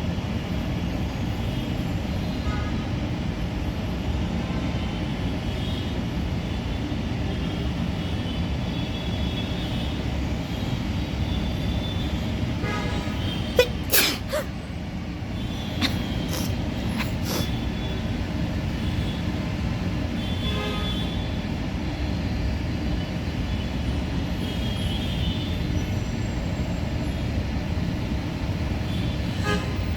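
Steady low background rumble, with a woman's sneeze about fourteen seconds in, a sharp double burst that is the loudest sound, followed by a couple of fainter short sounds.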